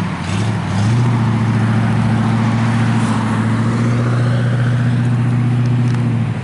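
A motor vehicle engine running steadily at one pitch, stepping up a little about a second in and dropping away near the end.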